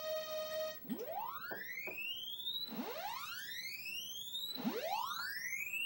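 Commodore SX-64's SID sound chip playing a waveform test. A steady buzzy tone, the end of Voice 1's pulse-width sweep, cuts off under a second in. It is followed by three rising pitch sweeps of about two seconds each, going from low to high: Voice 2 stepping through its triangle, sawtooth and pulse waveforms, each with a different tone colour.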